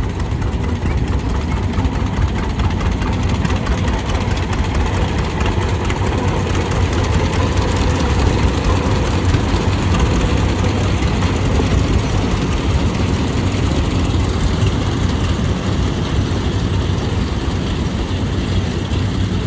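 Heavy diesel engines of farm harvest machinery running steadily, a loud low rumble.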